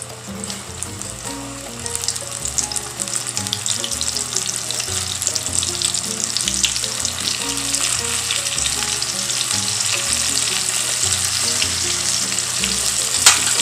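Coated shrimp deep-frying in hot oil: a dense crackling sizzle that grows louder about two seconds in and then holds steady. One sharp clack near the end.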